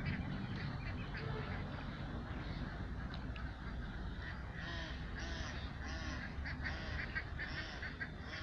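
Waterfowl calling in quick, repeated short calls, coming thickest in the second half, over a low steady rumble.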